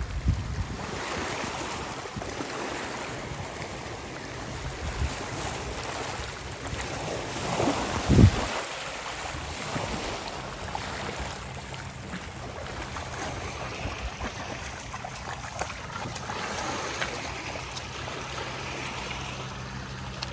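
Sea water washing and lapping at the shore, with wind on the microphone. A loud low thump about eight seconds in.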